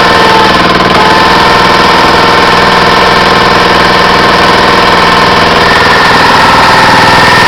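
Small gas engine of a log splitter running steadily and loudly, its pitch holding nearly constant with a slight shift about a second in.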